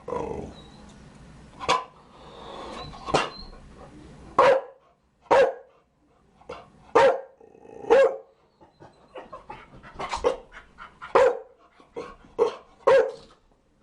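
Chow Chow barking repeatedly: single sharp barks at irregular gaps of about a second, with softer short barks in between.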